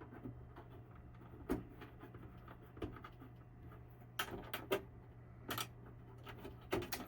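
Scattered clicks and knocks of the side cover being fitted back onto a Dell OptiPlex 3020 small-form-factor computer case, with a quick cluster of them about four seconds in.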